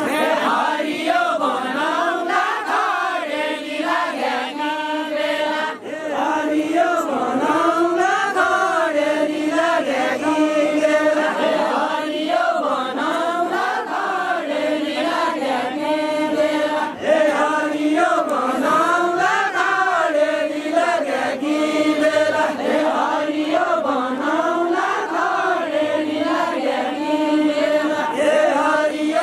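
Group of voices singing a Deuda folk song together, unaccompanied: a slow, chant-like melody with long held notes.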